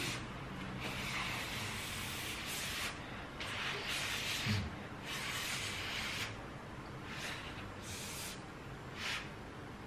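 Someone blowing on a spoonful of hot lasagna to cool it: short puffs of breath, about eight, at irregular intervals.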